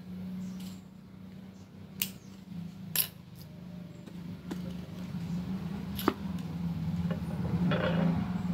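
Small metal parts and a small screwdriver handled at a tabletop, giving three sharp metallic clicks (about two seconds in, a second later, then about three seconds after that) and a few softer taps, over a steady low hum.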